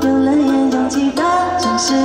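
Live pop song on a concert stage: a singer holding long notes that slide from one pitch to the next over a band with a steady beat.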